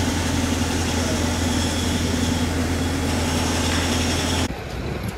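City street ambience dominated by a steady low machine hum. The hum cuts off abruptly about four and a half seconds in, giving way to quieter street noise.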